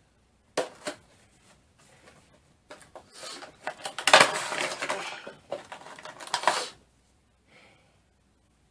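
Packaging of a boxed vinyl collectible figure being handled: two sharp clicks, then a few seconds of dense crinkling and clattering of cardboard and plastic, loudest near the middle.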